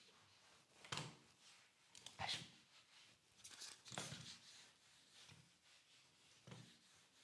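Faint handling sounds of a gaming mouse on cloth mousepads: a handful of short, soft knocks and scrapes as the mouse is set down, lifted and slid, with near silence between them.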